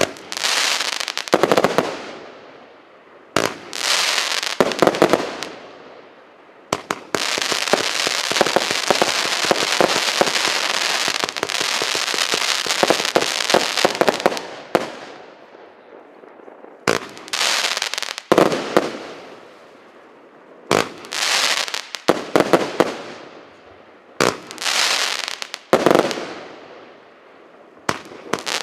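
РС9060 consumer firework battery firing: single shots a second or two apart, each followed by a fading crackle, with a dense spell of continuous rapid crackling lasting about eight seconds in the middle.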